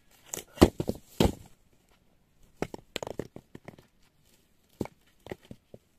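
Stones being thrown down and knocking against other stones, with rough crunching, in irregular clusters: two heavy knocks within the first second and a half, a quick run of them about three seconds in, and a few more near the end.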